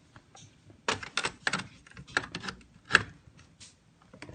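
An irregular run of sharp clicks and knocks, about a dozen, starting about a second in with the loudest near the three-second mark: hands and tools working at a Murray electrical panel.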